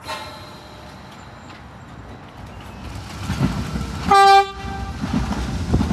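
An R32 subway train approaching with its rumble building, giving a short, loud horn blast about four seconds in, after a brief fainter toot at the start.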